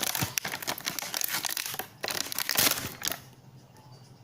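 Crinkly plastic packaging being crumpled and torn open by hand, crackling for about three seconds before going quiet.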